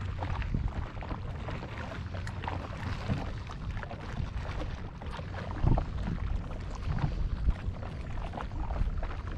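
Gusty wind rumbling on the microphone over water lapping and splashing at the shore, with a couple of brief louder knocks around the middle.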